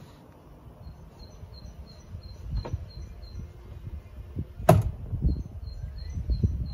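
Rapid high electronic beeping, about four beeps a second, from the car's interior warning chime; it pauses for a moment past the middle, then starts again. A sharp knock a little before five seconds is the loudest sound, with softer knocks and rustling around it.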